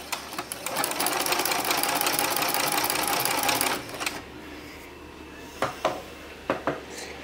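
Janome Memory Craft 5200 sewing machine with a walking foot fitted, stitching fast through fabric: a rapid, even clatter for about three seconds that stops abruptly. A few sharp clicks follow near the end.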